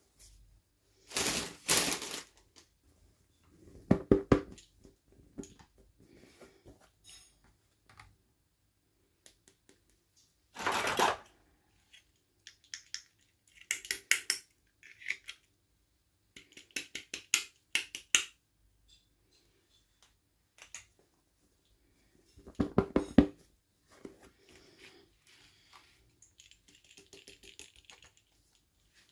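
Small plastic miniature toys and their packaging being handled: scattered clusters of clicks, taps and rattles every few seconds, with quiet gaps between them.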